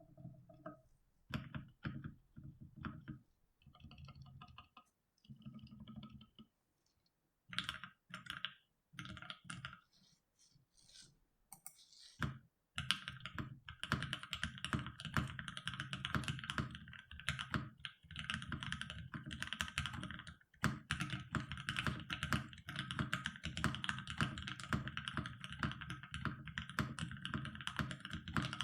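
Custom mechanical keyboard typed on: a CannonKeys Rekt1800 with an FR4 plate, JWK Alpaca linear switches filmed with TX films and lubed with Krytox 205g0, and ePBT keycaps. Scattered keystrokes and short runs with pauses at first, then steady fast typing from a little under halfway through.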